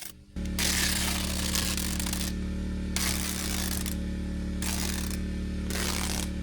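A steady low machine hum starts abruptly just after the beginning. Patches of hiss come and go over it, each lasting about half a second to two seconds.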